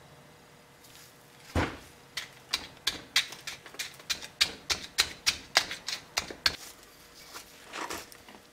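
Molding sand being dug and scraped away from a fresh cast iron casting with a screwdriver and hands: sharp scraping clicks, about three a second, starting after a quiet second and a half.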